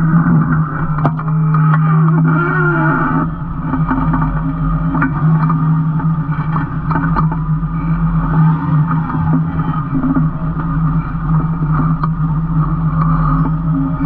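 Tractor engine running steadily under load as it pulls a Kverneland E3 reversible plough through old pasture, with the plough's rattle and the scrape of turning soil. Occasional sharp clicks and knocks.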